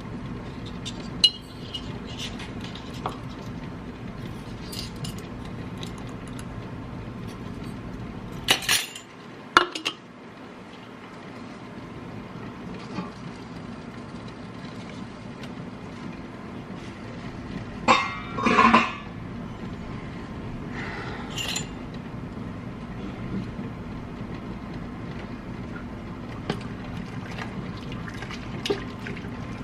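Metal measuring spoon clinking and tapping against glass canning jars as salt is spooned into each jar, with a few louder clinks among quieter taps over a steady low hum.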